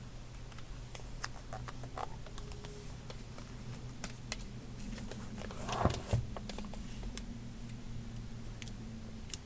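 Small items and packaging being handled on a workbench: scattered light clicks and taps, with two louder knocks about six seconds in, over a steady low electrical hum.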